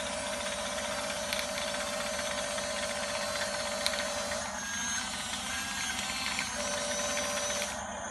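RC toy bulldozer's motor and gears whirring steadily, the whine stepping to a different pitch about halfway through and back again later, with a few small clicks.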